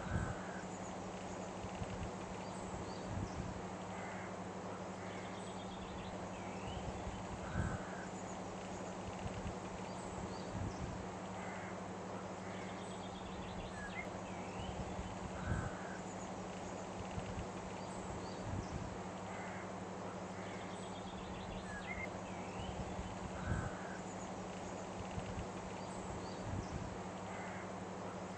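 Outdoor nature ambience with scattered short bird calls and occasional low thumps over a steady low hum, the same pattern repeating about every eight seconds as a loop.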